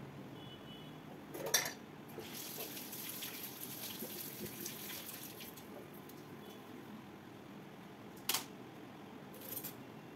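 Water running from a kitchen tap for about three seconds, with a sharp knock just before it and two short clicks near the end.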